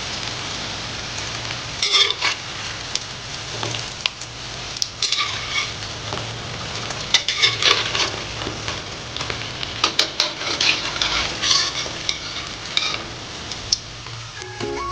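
Tofu blocks frying in hot cooking oil in a wok with a steady sizzle. A spatula scrapes and clinks against the wok several times as the fried blocks are turned and lifted out.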